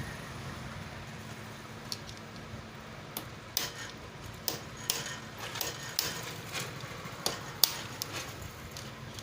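Hand tools clinking and tapping on the metal of a motorcycle engine as rusted screws are worked loose: about a dozen sharp, irregular metallic knocks, the loudest near the end, over a steady low hum.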